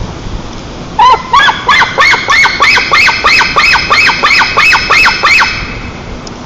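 Alarm siren sounding a fast run of loud, evenly spaced chirps, about three a second, each a quick up-and-down sweep in pitch. It starts about a second in and stops about a second before the end.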